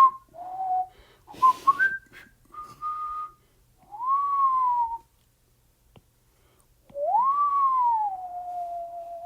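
A person whistling idly, a pure-tone tune: a few short notes in the first three seconds, a note that rises and falls around four to five seconds in, then a long note from about seven seconds that swoops up, slides down and holds. A brief rush of noise, like a breath or rustle, comes about a second and a half in.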